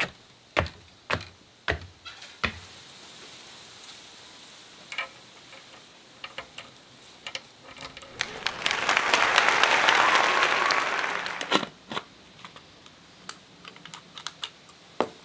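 Sharp clicks and clacks of brass air-hose fittings and spray-gun parts being handled and fitted together, scattered through. A hiss swells and fades for about three seconds midway.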